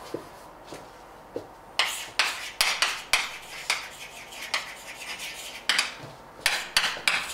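Chalk writing on a blackboard: a quick run of short scratching and tapping strokes, starting about two seconds in.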